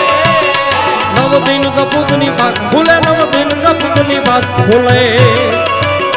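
Gujarati dayro music: a man sings an ornamented, wavering melody over the held chords of a harmonium and a steady tabla beat. The voice comes in about a second in, after a moment of harmonium and drums alone.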